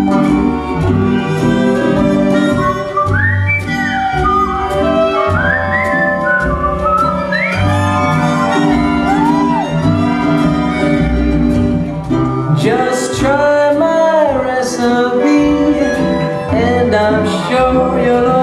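Recorded jazz band music in an instrumental passage: a melody with sliding, arching notes over a steady bass line.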